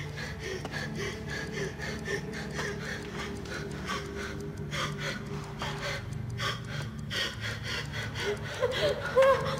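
A woman breathing fast and gasping in fear, over a steady low drone with fast rhythmic pulses; a louder gasp or whimper comes near the end.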